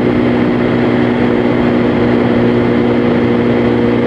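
Kawasaki ZX-10R's inline-four engine running at a steady speed, its note holding level with no revving, over a constant rush of noise.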